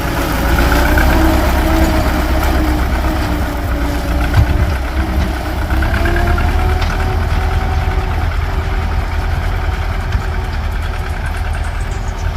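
Tractor engine running steadily at a working speed, its note drifting gently up and down.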